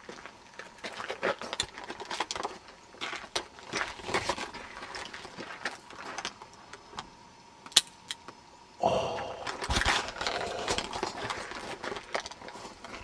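Scattered light metallic clicks and rattles of a handgun being handled, with one sharp click about eight seconds in. Louder rustling handling noise starts about a second later.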